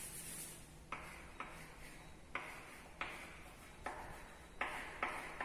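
Chalk drawing on a chalkboard: about seven short strokes, each beginning with a sharp tap of the chalk and trailing off in a scratchy hiss.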